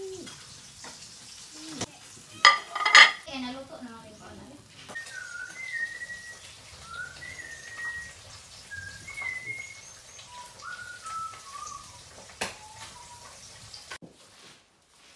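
A ceramic plate set down on a tiled tabletop, two ringing clinks, followed by a string of short, high whistled notes that slide up and down, one after another, for several seconds.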